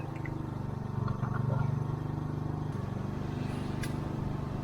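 Small petrol engine of a portable water pump running steadily, draining a rock pool, its note pulsing evenly with the firing strokes. A sharp tick sounds near the end.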